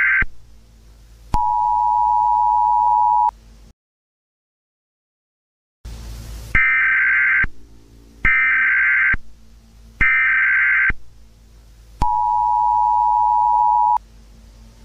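Emergency Alert System tones: the end of a harsh data burst, then the two-tone attention signal for about two seconds, then a two-second dropout to dead silence. Three short, harsh data bursts of the alert header follow, each under a second and about a second apart, and then the two-tone attention signal sounds again for about two seconds, each section starting with a click.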